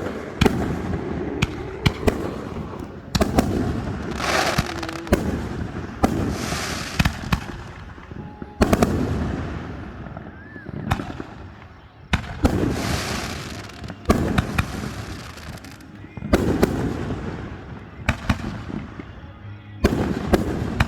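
Aerial fireworks going off in quick succession: a run of sharp bangs and booms, with long crackling, hissing stretches as shells burst and their stars fizzle.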